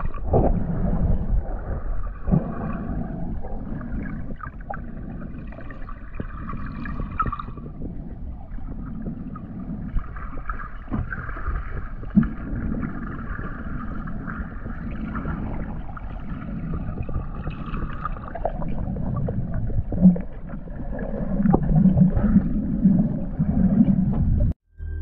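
Muffled underwater sound picked up by a submerged camera: a low rumble of moving water with scattered sharp clicks, swelling for a few seconds near the end and cutting off suddenly.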